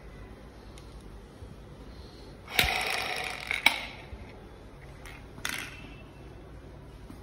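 Three-ball plastic lung exerciser (incentive spirometer) being handled with plastic clicks and rattles, and a hard breath blown through it for about a second near the middle, with a shorter puff about two seconds later. The balls stay at the bottom of their tubes.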